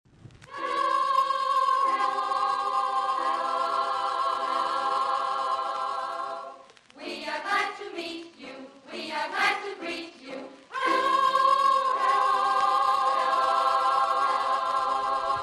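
Choral music: a held choir chord, broken in the middle by a few seconds of choppy, stuttering sound, then the held chord again.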